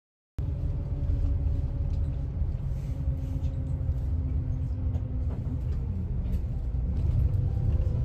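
Steady low rumble of a coach bus's engine and road noise, heard from inside the passenger cabin, cutting in abruptly just after the start.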